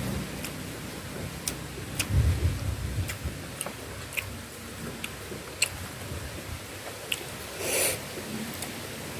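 Close-miked chewing and mouth sounds while eating, with scattered sharp wet clicks. A low rumble comes about two seconds in, and a short hissing burst comes near the end.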